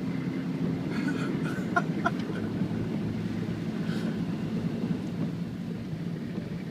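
Car engine running at a steady low hum while driving along a flooded road, with road and water noise underneath.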